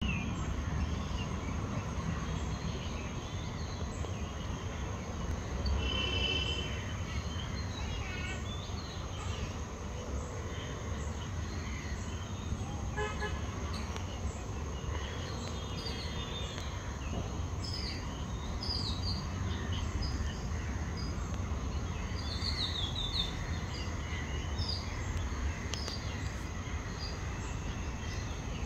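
Outdoor ambience: a steady low rumble with a thin, steady high tone over it, and short high bird chirps that come more often in the second half.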